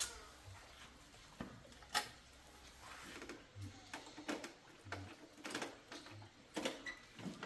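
Irregular light clicks and knocks, one every second or so, the sharpest about two seconds in.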